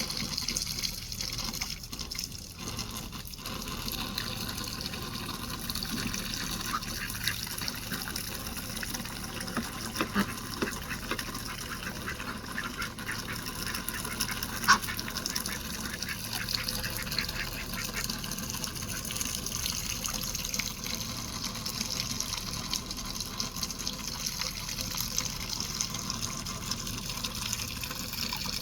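Steady running, gushing water, with a few brief sharp splashes or clicks on top, the loudest about halfway through.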